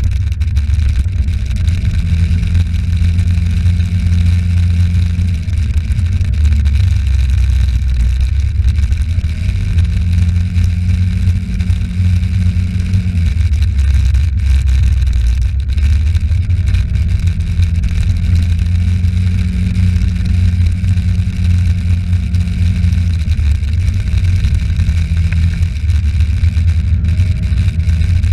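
Vehicle engine running while driving along a street, its hum holding steady for stretches of a few seconds at a time, under a heavy wind rumble on the microphone.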